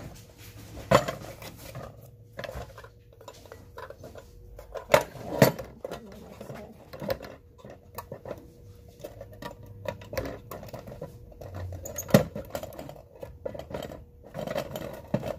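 Old metal and tin objects being handled on a table: irregular clinks, clicks and knocks as they are picked up, turned over and set down.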